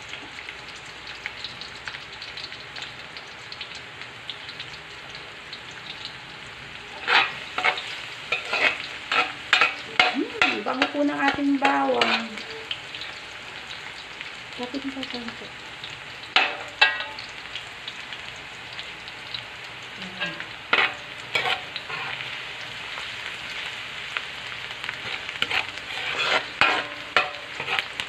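Minced garlic sizzling in hot oil in a large metal wok, with a metal spatula scraping and clanking against the pan as it is stirred. The clanks come in clusters, busiest about a third of the way in and again near the end.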